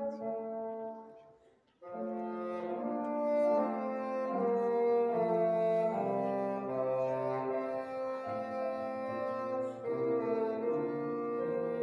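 Bassoon with piano accompaniment playing a Baroque sonata in sustained notes. The music fades out about a second in, and after a short silence it starts again just before two seconds in.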